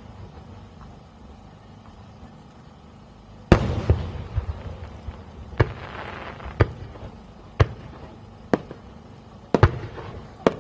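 Aerial firework shells bursting. The loudest report comes about a third of the way in and rumbles on afterwards. It is followed by six sharper single bangs at about one a second.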